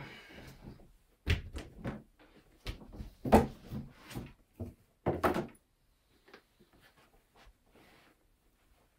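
Cardboard shoebox and sneakers being handled: a brief rustle, then a run of sharp knocks and thumps, the loudest about three and five seconds in.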